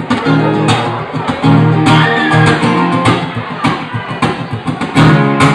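Acoustic guitar strummed in a steady rhythm, played live as a song's intro.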